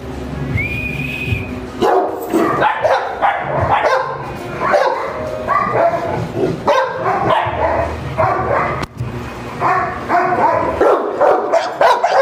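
Dogs barking and yipping in quick, overlapping calls, a Labrador retriever among them, starting about two seconds in.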